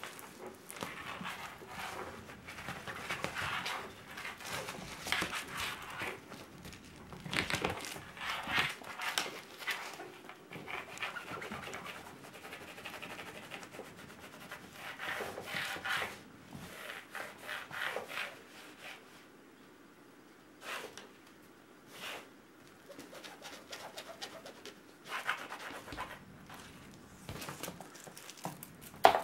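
Cat and kittens scuffling and scampering in and around a fabric pop-up play tent on a wooden floor: irregular bursts of rustling and scrabbling, dying down to a few isolated clicks for several seconds around two-thirds of the way through, then picking up again.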